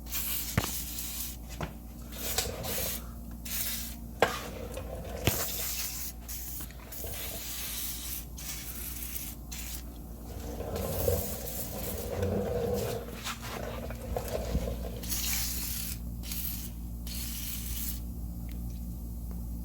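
Aerosol can of WD-40 penetrating oil sprayed in repeated hisses of varying length onto rusty suspension parts, with a few sharp clicks in between.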